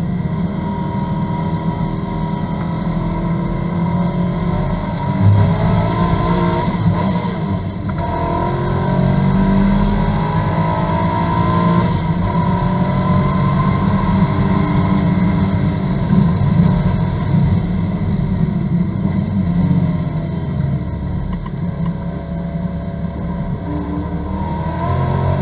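Corvette GT2 race car's V8 engine heard from inside the cabin, accelerating hard and running up through the gears with repeated rising sweeps and drops in pitch, then slowing with the pitch falling as the car brakes toward a corner near the end.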